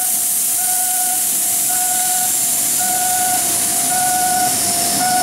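Railway level-crossing alarm ringing: an electronic tone repeating about once a second, over a steady hiss.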